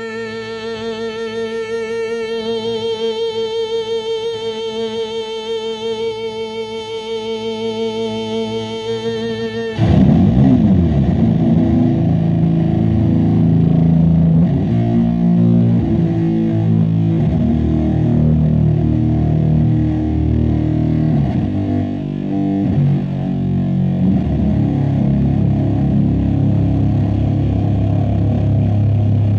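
Electric guitar through a Zlatorog fuzz pedal and amp stacks: a long held note wavering in pitch, then about ten seconds in, heavy, distorted low riffs come in abruptly and louder, settling into a low held drone near the end.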